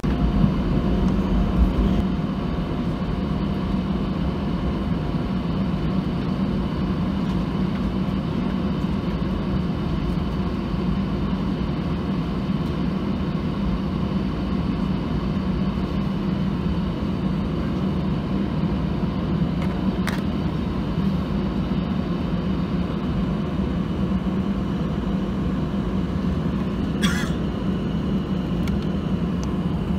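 Steady cabin drone of an Airbus A319 taxiing on its two CFM56 engines, with a faint whine over a low rumble. A brief click comes about two-thirds of the way through, and a short rattle near the end.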